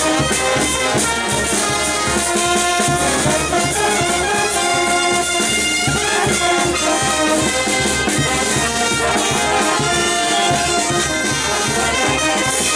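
Brass band music: trumpets and trombones playing a melody of held notes over a steady drum beat.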